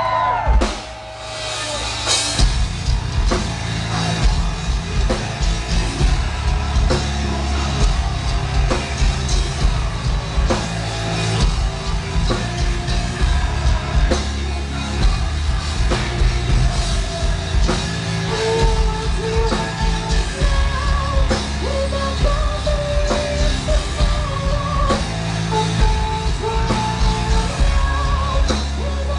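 Live metal band playing loud, heard from the crowd: after a brief drop about a second in, drums, bass and guitars come crashing back in, with a singer's melody carried over the band in the second half.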